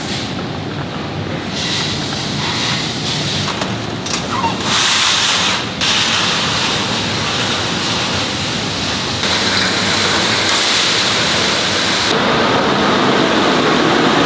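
Steady, loud hiss of factory machinery and ventilation. Its tone and level shift abruptly a few times.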